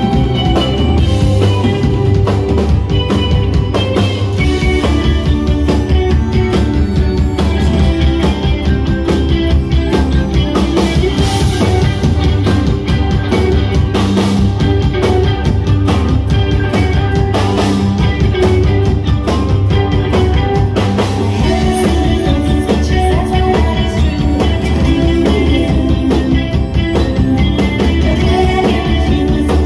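A live rock band plays a new-wave pop song through a club PA: a drum kit, electric guitars and bass, with a woman's voice singing at times.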